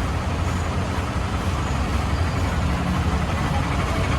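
Steady low engine rumble with a constant noisy haze over it, unchanging throughout.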